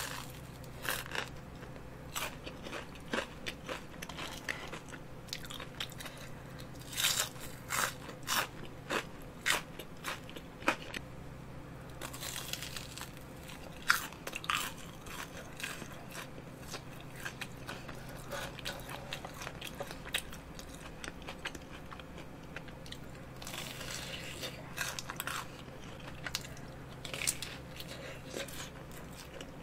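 Close-miked biting and chewing of crispy fried food, a battered hot dog among it, with irregular sharp crunches. The crunches cluster about a quarter of the way in and again near the end, with one loud crunch about halfway.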